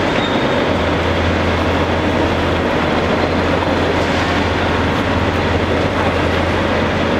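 Steady drone of heavy diesel construction machinery, a constant low hum under a dense noise, with no distinct knocks or impacts.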